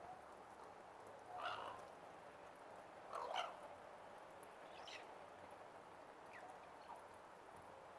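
Common raven giving a few short, odd calls: two louder ones about a second and a half and three seconds in, then fainter falling whistles.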